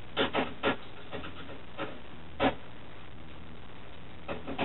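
Short, irregular clicks and light rattles of screws and metal parts being handled inside a steel PC case. There are several in the first couple of seconds, a pause, then a few more near the end.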